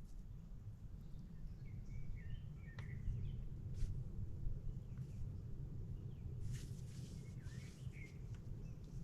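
Outdoor woodland ambience: a steady low rumble with a few short bird chirps in two little runs, a couple of sharp clicks and a brief rustle.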